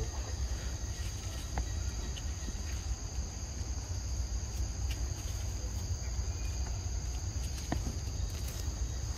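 Steady high-pitched drone of insects calling, over a low rumble, with a few faint ticks.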